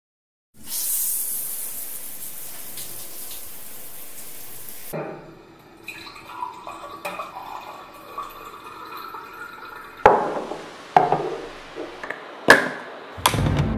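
Liquid hissing and splashing into a drinking glass of yellow juice, followed by a quieter swirling sound. Near the end come about four sharp knocks, like glass set down against a table.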